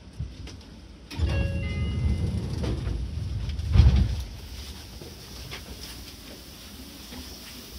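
Seibu 6000-series electric train heard from on board: a loud low rumble starts about a second in and lasts about three seconds, with a sharp peak near its end, then falls back to a quieter steady background.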